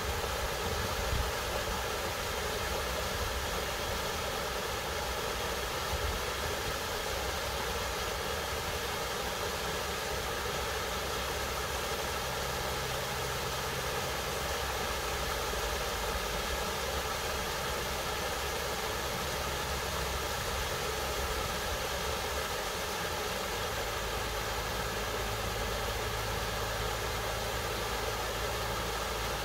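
Steady rushing of a small waterfall and stream, a constant even noise, with a low hum underneath that shifts in pitch a few times.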